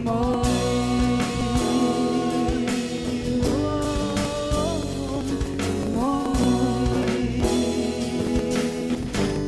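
Live worship band playing (guitars, keyboard and drums) while a singer holds three long, slightly wavering notes with no words.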